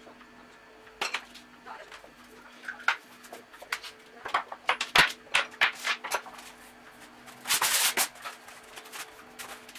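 Irregular clicks and clinks of small steel chuck parts and a screwdriver being picked up and set down on a table, with a short rustle about three-quarters of the way through.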